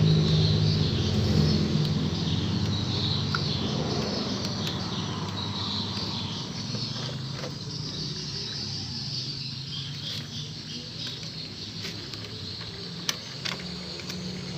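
A motor's low hum fades away over the first several seconds and builds again near the end, under a steady high chirr like insects. Two sharp clicks come near the end.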